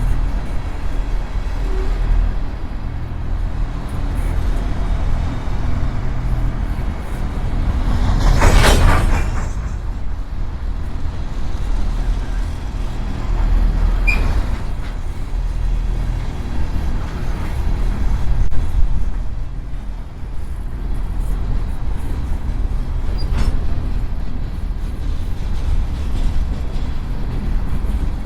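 Empty freight train of coal hopper cars rolling past with a steady low rumble of wheels on rail, slowing. About eight seconds in, a loud burst of wheel noise rises sharply for about a second and falls away.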